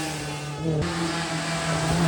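Rally car engine holding a steady note at moderate revs between bursts of acceleration, with a brief dip in the higher frequencies about half a second in.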